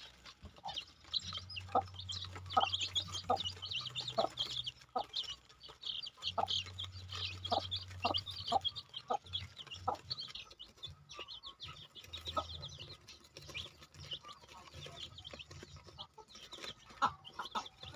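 Chickens clucking and chirping, with many quick, high chirps that overlap one another throughout.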